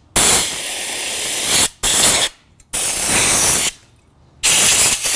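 Blasts of compressed air from a blow gun hissing into a gas oven burner tube to blow out built-up dust: four bursts, three of a second or more and one short one, with brief gaps between.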